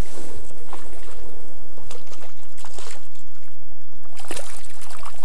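Wind rumbling on the microphone, with short splashes from a hooked rainbow trout thrashing at the water's surface. A cluster of sharp rustles and splashes comes near the end.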